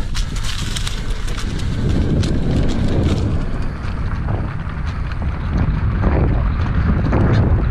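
Wind buffeting the microphone over the rumble of an electric mountain bike riding a dirt trail. For the first three seconds or so it carries a run of sharp clicks and rattles from the bike over rough ground.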